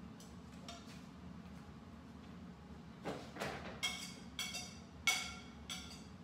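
A metal utensil clinking against a cooking pot several times, each clink ringing briefly, after a short scrape about halfway in; the loudest clink comes near the end.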